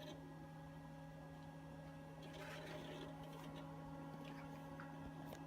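Gateway Essential desktop computer running, a faint steady low hum from its fans, with a faint brief rustle about two and a half seconds in.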